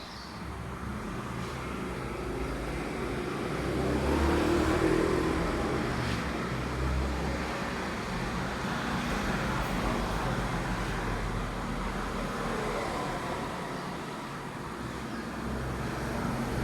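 Road traffic noise: a steady rumble of passing vehicles that grows louder about four seconds in and stays fairly even after.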